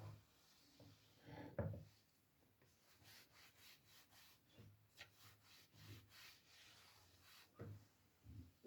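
Near silence with faint, scattered rubbing and light tapping sounds from something being handled, including a slightly louder knock about a second and a half in.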